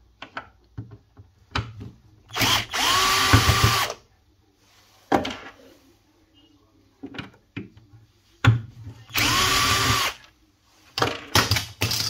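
Cordless drill-driver run twice, each for about a second and a half, backing screws out of a fridge's plastic cover strip. The motor whine rises as it spins up, then holds steady. Light clicks and knocks of handling come between the two runs.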